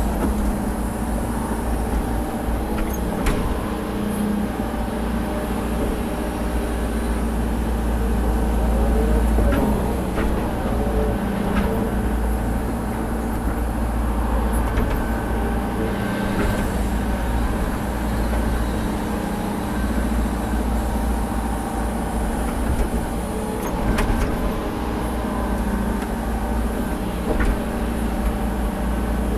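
Earthmoving machine's diesel engine running steadily, with a few sharp knocks here and there.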